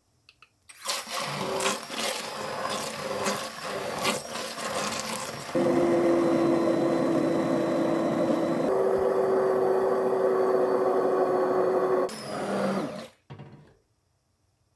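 Hand-held immersion blender puréeing cooked corn kernels in liquid. It first churns unevenly as the kernels are chopped, then about five and a half seconds in it runs as a steady motor hum that steps slightly higher partway through. It stops about twelve seconds in, after which a short final burst follows.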